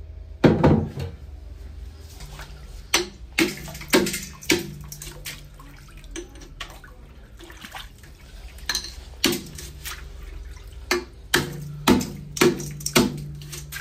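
Water splashed and sloshed by hand in a large stainless-steel dough mixer bowl, a run of short sharp splashes in two bursts, with a louder knock about half a second in.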